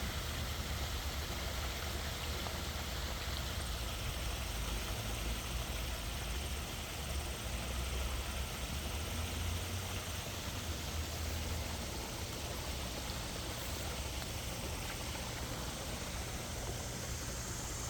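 Steady rush and splash of water from a backyard koi pond's waterfall, with a low rumble underneath.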